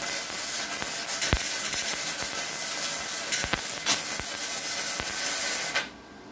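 Self-shielded flux-core wire welding (1.0 mm E71T-GS wire on a Redbo MIG-120): the arc crackles and sizzles steadily with a few sharp pops, then cuts off suddenly near the end.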